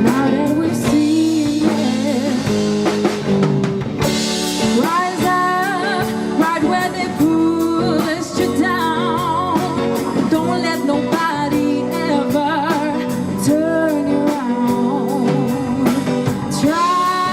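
A live pop-rock band plays a song with guitar and drum kit. A singer comes in about four seconds in and holds notes with vibrato.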